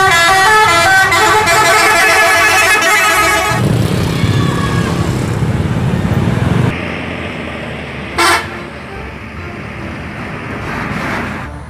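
A bus's multi-tone 'telolet' musical air horn playing a quick warbling tune of stepping notes for about four seconds, then the low rumble of a bus engine. A little past eight seconds in comes one short horn toot.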